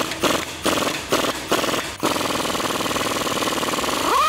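3/8-drive pneumatic impact wrench on the rear spindle nut, hammering in short bursts, then hammering continuously from about two seconds in as it takes the nut off. Near the end a whine rises and then falls.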